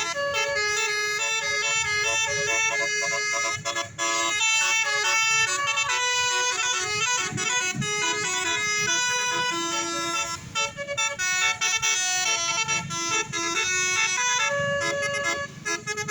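Bus 'telolet basuri' multi-tone horn playing a fast melody, several horn notes sounding together and stepping from note to note, with short breaks about 4 and 10 seconds in.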